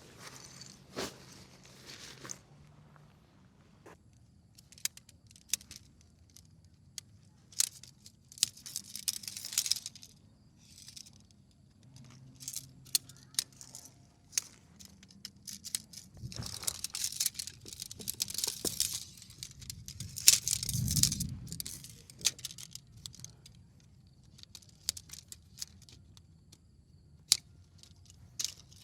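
Bursts of rustling and crinkling, as of material or packaging being handled, with scattered small clicks and taps between them.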